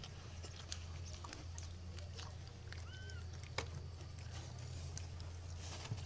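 Newborn puppies nursing on their mother: soft scattered suckling clicks and one short, high squeak about three seconds in, over a steady low hum.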